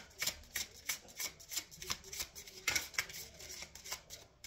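A deck of oracle cards being shuffled hand to hand, with a soft flick of cards about three times a second.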